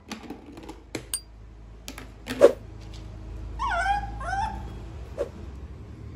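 Shih Tzu puppy making one sharp yap about two and a half seconds in, then a second later three high whimpers, each falling in pitch, with a few light clicks around them.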